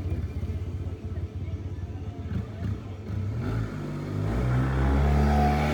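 A motor engine running with a low, fluttering rumble, then revving up about three and a half seconds in, growing louder and higher in pitch towards the end.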